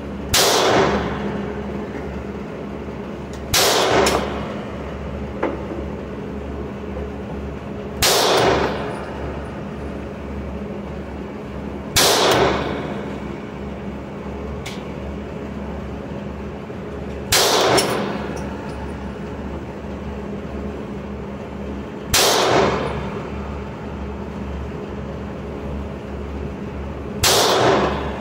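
Seven single shots from a Hi-Point semi-automatic pistol, fired slowly about four to five seconds apart. Each shot is a sharp crack with a short echoing tail from the indoor range, over a steady low hum.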